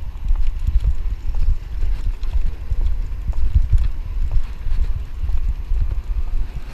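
Low, irregular rumble of movement and wind on a GoPro carried along with a walking guide dog, with a run of light knocks from its steps.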